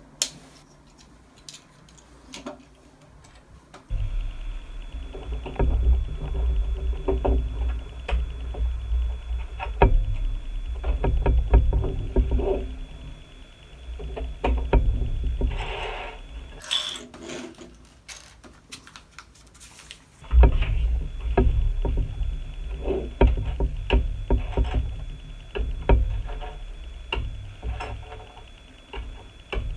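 Plastic LEGO bricks clicking and snapping together and pieces knocking on a tabletop as a carriage model is assembled by hand. A low rumble with a faint steady high whine comes in about four seconds in, drops out around fifteen seconds, and returns around twenty seconds.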